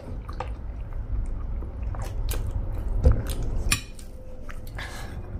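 Chewing of chatpate, a spicy puffed-rice snack, with scattered clicks of metal spoons against plates. A louder knock comes about three seconds in.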